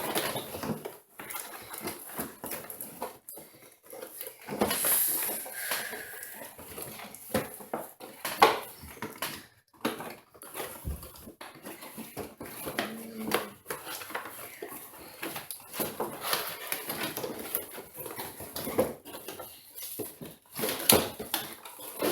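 Toy packaging being opened and handled: plastic and cardboard rustling and crinkling, with many irregular clicks and knocks.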